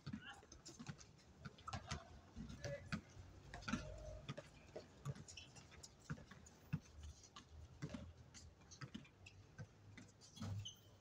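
Faint, irregular knocks and taps of a basketball game on a hard court: the ball bouncing and players' shoes hitting the surface, with a few short squeaks or calls mixed in.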